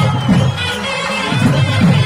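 Live Tamil folk-dance music: barrel drums beaten in quick rolling clusters of strokes, loudest about a second apart, under a steady held melody line.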